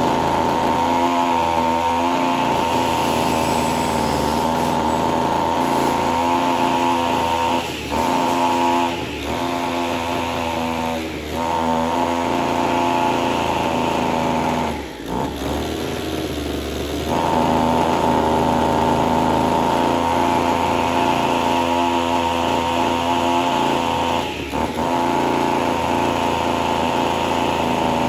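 Two-stroke brush cutter engine running at a fairly steady speed, with a few brief dips, on a test run after its stale petrol was replaced with fresh fuel and nothing else adjusted.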